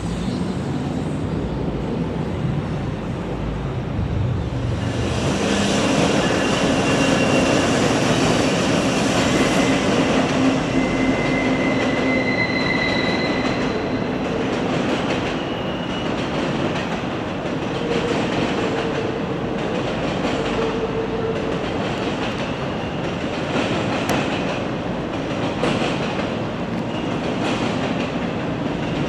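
Norfolk Southern intermodal freight train passing, led by GE D9-44CW diesel locomotives. It starts as a low rumble, and from about five seconds in the train passing grows loud: a steady wheel-and-rail rattle with a few brief high wheel squeals.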